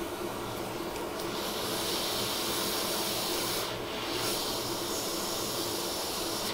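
Hot air rework station blowing a steady hiss while a chip is heated off or onto a phone logic board. The hiss strengthens about a second in and dips briefly around the middle, over a faint steady hum.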